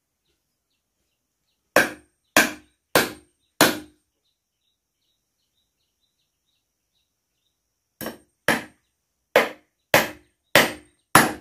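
Claw hammer driving nails into wood: four sharp blows in quick succession, a pause of about four seconds, then six more blows, each with a faint metallic ring.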